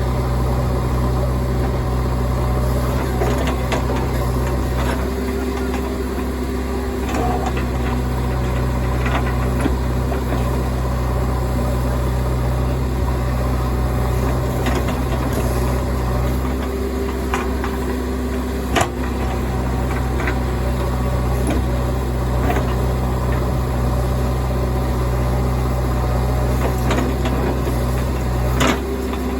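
Heavy diesel engine running steadily at a work site. Its note changes about 5 s in, again around 17 s in and near the end, with a few sharp knocks, the loudest about 19 s in.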